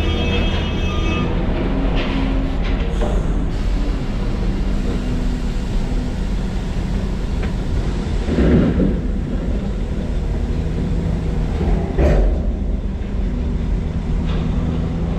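Diesel engine of heavy machinery running steadily at work, with a louder rumble about eight seconds in and a sharp knock about twelve seconds in.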